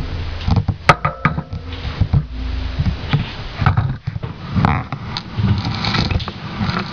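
Clicks and knocks of plastic laptop screen parts being handled and fitted together, over an uneven low rumble of handling noise on the microphone.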